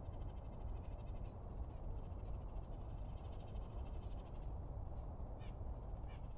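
Northern cardinal calling: stretches of fast repeated high notes, then two short sharp chip notes about five and six seconds in. A steady low rumble underlies it.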